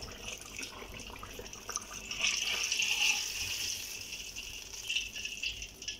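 Eggplant halves frying in hot oil: a steady sizzle, loudest a little after two seconds in.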